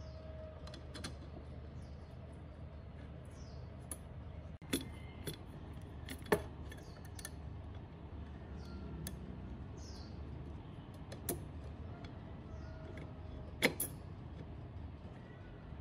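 Small metal clicks and clinks from a hand hacksaw's steel frame and blade being handled and fitted together, a handful of separate clicks with the sharpest ones about a third of the way in and near the end, over a faint steady hum.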